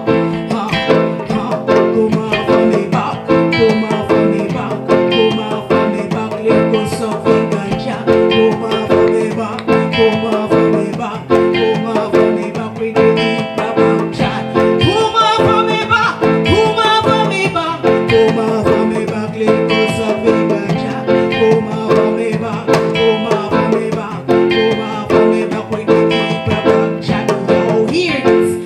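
Live band playing reggae: acoustic guitar over drums, bass and keyboard, with a steady beat.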